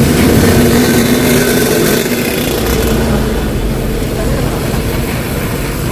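Yamaha RX-King two-stroke motorcycle engine running through its hollowed-out exhaust, the sound slowly getting quieter.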